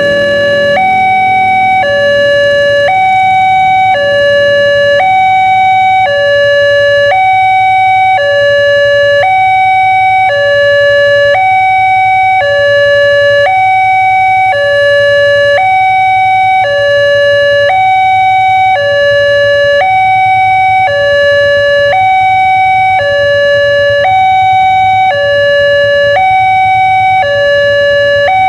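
Railway level-crossing warning alarm from the pole-top horn loudspeaker: a loud electronic two-tone signal alternating evenly between a lower and a higher note, each held about a second, sounding while the crossing is closed for an approaching train.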